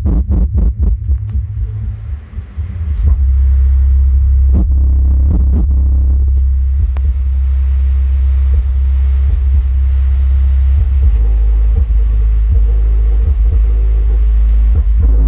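A Kicker Comp C car subwoofer playing very deep, loud bass. It starts with repeating bass pulses, dips briefly about two seconds in, then holds a sustained deep bass note that drops lower about eleven seconds in.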